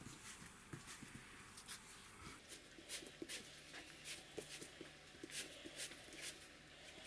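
Hands rolling a thin buttered sheet of dough into a tight roll on an oilcloth tablecloth: faint, irregular small clicks and rubbing. A faint low hum joins a little over two seconds in.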